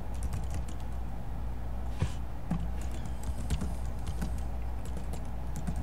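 Typing on a computer keyboard: a run of irregular key clicks, one louder about two seconds in, over a steady low hum.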